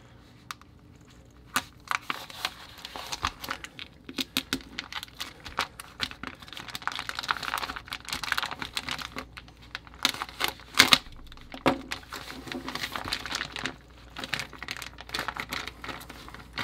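Plastic vacuum-sealed food packaging crinkling and crackling as it is cut with a folding knife and pulled apart by hand. A dense run of sharp crackles starts about a second and a half in, with the loudest crackles a little past the middle.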